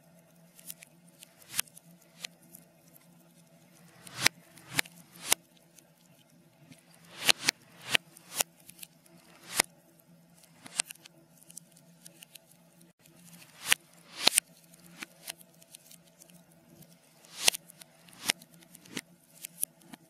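Wood fire of burning logs crackling, played backwards: irregular sharp pops and snaps, clustered in runs of several at a time, over a faint steady low hum.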